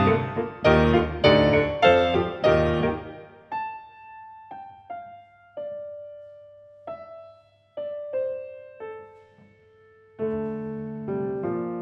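Grand piano played solo in a contemporary classical piece: loud, dense chords struck in quick succession for the first three seconds, then sparse single notes in the middle register, each left to ring and fade, then low, sustained chords entering about ten seconds in.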